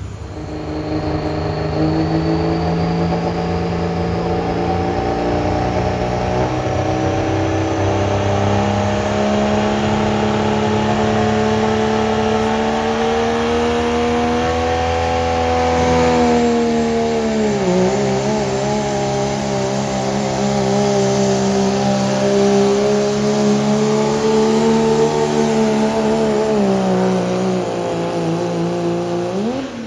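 Pro street diesel pickup truck engine held at full throttle under load while pulling a sled. The engine pitch climbs slowly, dips sharply once about two-thirds of the way through and climbs again, then falls away as the throttle comes off near the end.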